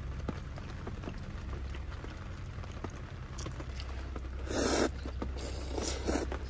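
Ramen noodles slurped in several short, loud, noisy bursts from about four and a half seconds in, over a low steady hum and scattered faint ticks.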